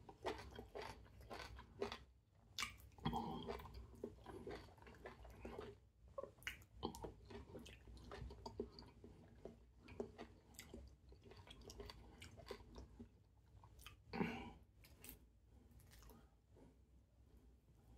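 A person chewing and eating fufu dipped in okra soup, close to the microphone: quiet, wet mouth sounds with many short clicks and smacks. Two louder moments come about three seconds in and again near fourteen seconds.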